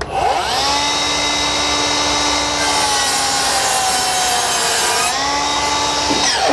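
Milwaukee M18 FUEL 7-1/4 inch cordless miter saw's brushless motor spinning up with a rising whine and cutting through wooden trim molding. The whine sags slightly in pitch under load, then spins down near the end.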